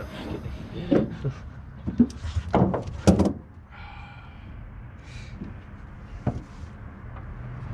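A few sharp clunks and clicks in a pickup truck's bed from a ratchet tie-down strap being handled and someone moving about on the bed, most of them in the first half and one more later.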